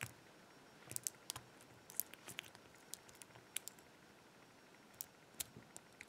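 Faint, irregular metallic clicks of a Peterson hook pick lifting the pins of a Brinks five-pin brass padlock under light tension, single-pin picking in search of the binding pins. The clicks come in small clusters about a second in, around two seconds and again near five seconds.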